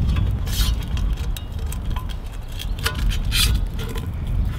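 Several short metallic clinks and scrapes of camp cookware being handled, a black frying pan among it, over a steady low rumble of wind on the microphone.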